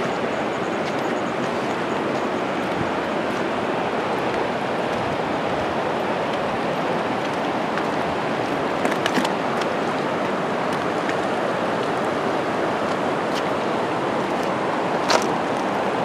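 Steady rush of water from a waterfall and its rapids, an even, unbroken noise. A few sharp clicks sound over it, the loudest about fifteen seconds in.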